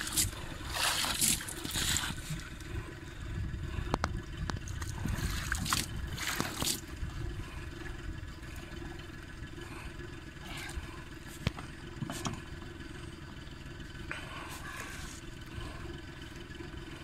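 Large wels catfish thrashing at the surface against the boat's side, throwing up splashes in bursts during the first two seconds and again around six seconds in, then lighter sloshing of water. A steady low hum runs underneath.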